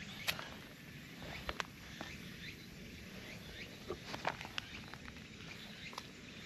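Quiet outdoor ambience with scattered light rustles and clicks, the sharpest ticks coming about a quarter second in, around a second and a half in, and about four seconds in.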